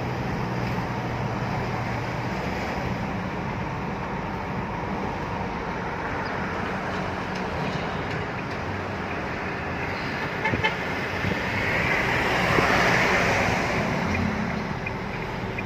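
Isuzu D-Max pickup driving on a road test: steady road and tyre noise over the low hum of its 3.0 turbo-diesel. A few light clicks come about ten seconds in, then the noise swells louder for a couple of seconds.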